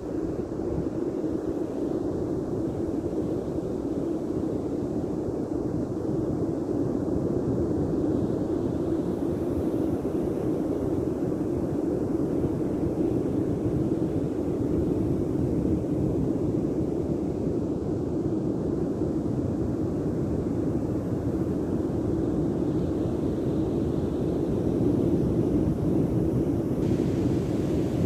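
Steady rushing noise of breaking ocean surf, mixed with wind on the microphone.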